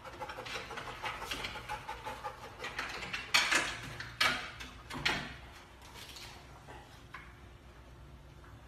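Golden retriever's claws scrabbling and scraping on a leaning wooden slatted frame as it climbs, with three louder knocks of the frame about three and a half, four and five seconds in. Quieter after about six seconds.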